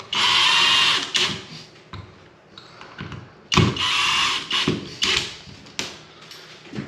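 Power drill driving screws to fasten a smoke detector mounting plate in place: two runs of about a second each, one at the start and one about three and a half seconds in, followed by a few short bursts as the screws are snugged down.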